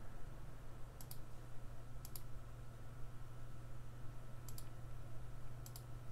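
Computer mouse clicking four times, each a quick press-and-release double click, over a steady low hum.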